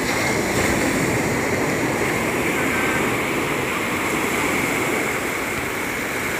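Sea surf breaking and washing up the beach: a steady rush of foaming water.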